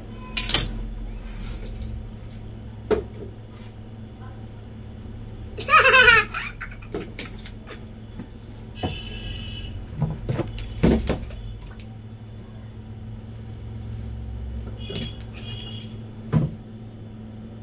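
Light clicks and knocks of hands placing chocolate chips on a cake over a steady low hum. About six seconds in, a short, high, wavering squeal like a child's laugh.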